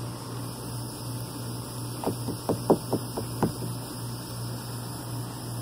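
About seven quick light taps on an International 505 dinghy's fiberglass transom around its cross member, made by fingers, over a second and a half in the middle, with the strongest near the middle of the run. A steady low hum and hiss run underneath.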